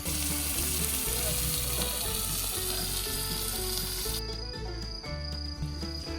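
Food sizzling on a grill, a dense steady hiss that cuts off abruptly about four seconds in, over background music with a steady bass line.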